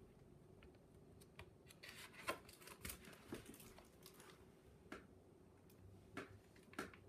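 Faint rustles and small clicks of a picture book being handled and its pages turned, against near-silent room tone.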